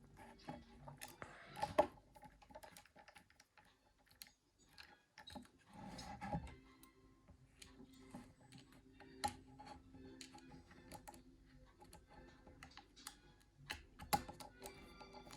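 Scattered small clicks and taps of a precision screwdriver and tiny screws against the plastic housing of a Nokia 9300i during reassembly, with a louder click about two seconds in and another near the end.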